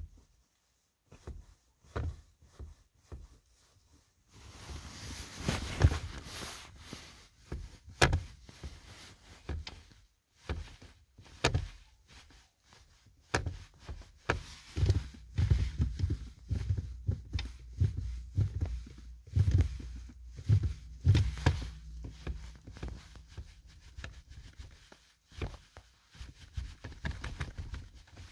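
Rubber-soled winter boot pressing and releasing a car pedal again and again: a string of irregular soft thumps and knocks, with a steady hiss underneath from about four seconds in.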